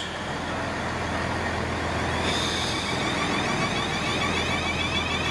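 South Western Railway Class 450 Siemens Desiro electric multiple unit pulling away from the platform. A steady low hum runs throughout, and from about two seconds in the high whine of its traction equipment comes in, rising in pitch again and again as the train gathers speed.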